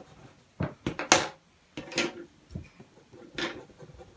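Coloured pencil drawn across black card in about half a dozen short, separate strokes, flicking in fur lines.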